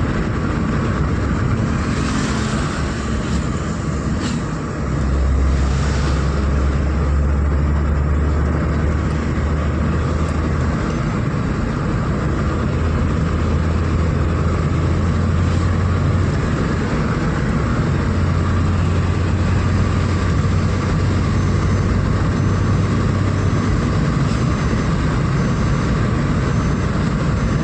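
A car on the move: a steady low engine drone with road and wind noise, the drone shifting in pitch a few times as the speed changes.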